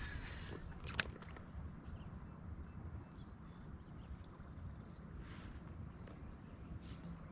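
Outdoor river ambience from a kayak: a steady high insect drone over a low wind rumble, with one sharp knock about a second in.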